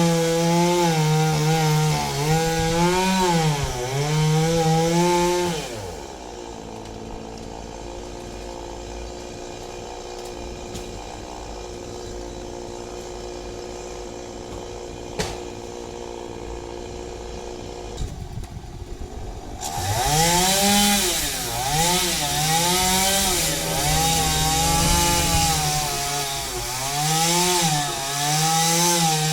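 Champion chainsaw running at full throttle, cutting into a fan palm, its pitch wavering as it bogs under load. About six seconds in it drops back to a steady idle, and about thirteen seconds later it revs up again and resumes cutting.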